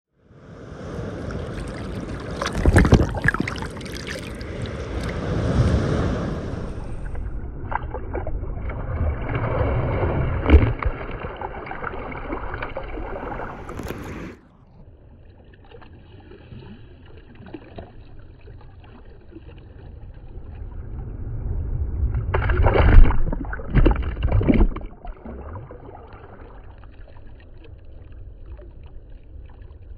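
Choppy sea water sloshing and splashing around a camera held at the water's surface. It is loud for about the first half, cuts down suddenly about halfway through, then swells loud again for a few seconds later on.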